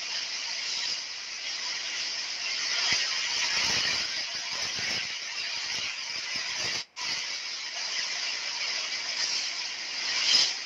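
Heavy rain pouring steadily, a dense hiss. The sound cuts out for a moment about seven seconds in.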